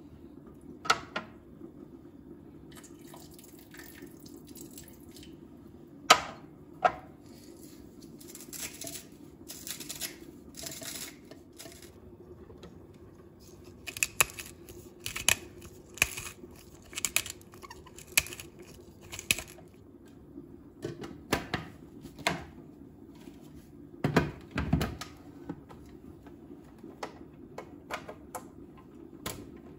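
Kitchen handling sounds: scattered sharp clicks and knocks of dishes and utensils, with a few short rushes that sound like water or rustling, over a low steady hum.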